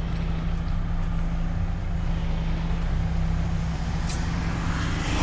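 Diesel lorry engine running steadily at low revs while the truck is manoeuvred, with a brief high click about four seconds in.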